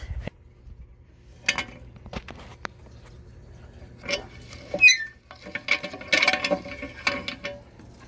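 Hand-cranked roller nutcracker hulling fresh pistachios: scattered clicks and knocks, a short squeak a little past halfway, then a dense clatter of nuts going through the rollers.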